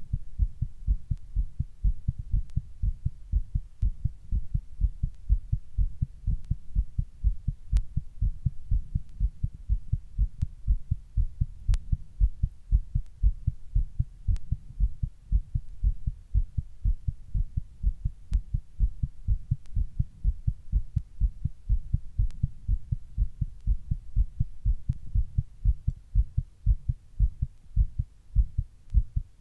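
A human heartbeat recorded close up: a fast, regular run of low thuds with no break.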